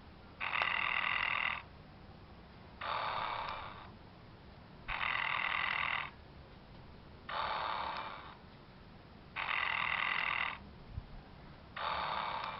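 Applause Snoring Snoopy plush toy's electronic snoring: six snores, one about every two seconds, alternating between two slightly different sounds.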